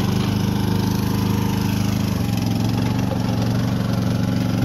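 Small engine of a tracked mini excavator running steadily, its note shifting slightly about two seconds in as the machine is worked.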